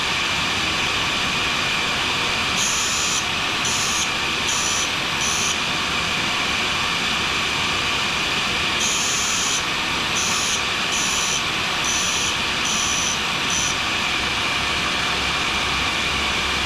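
A grinder runs steadily while a carbide scraper blade is sharpened on it. The carbide is touched to the wheel in short passes that each give a brief high-pitched hiss: four in a row, then after a pause six more.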